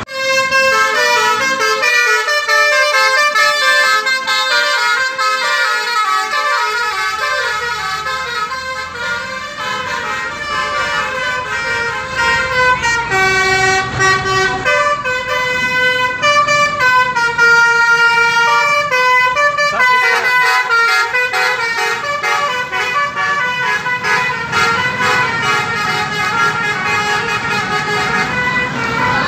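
Bus 'telolet' Basuri multi-tone air horn playing a long melody of quick, stepped notes, several tones sounding together.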